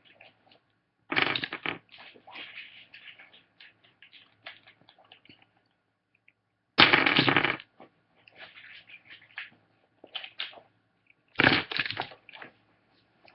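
Loose plastic Rubik's Cube pieces being handled, clicking and clattering against each other in irregular bursts. The three loudest bursts come about a second in, at about seven seconds and near the end.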